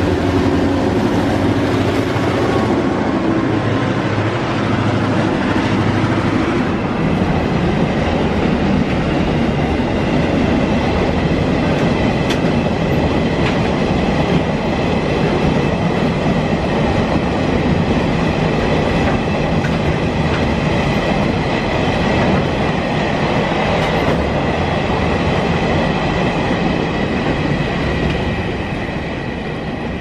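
Victorian Railways B-class diesel-electric locomotives B74 and B76 passing close by with their engines running, followed by a long rake of quarry hopper wagons rumbling and clattering along the rails. A steady high ringing from the wheels runs under the wagon noise, which eases slightly near the end as the last wagons go by.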